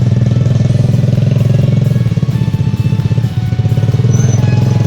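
Small motorcycle engine of a three-wheeled motorcycle taxi (samlor) running steadily under way, its note dipping briefly a little past halfway.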